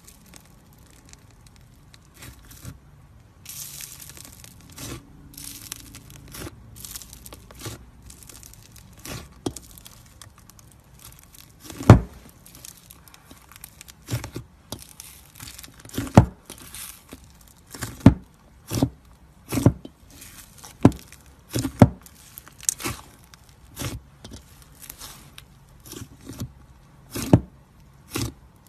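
Hands squishing and folding a thick pink slime full of beads in a metal bowl: soft crackling and crinkling at first, then from about halfway through a run of sharp pops of trapped air, roughly one a second.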